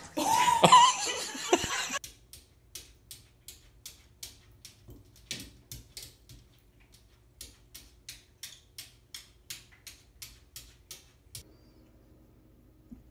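A person's voice, loud and laughing, over the first two seconds. Then a long, even run of short sharp ticks, about three a second, which stops about eleven seconds in and leaves a faint steady hum.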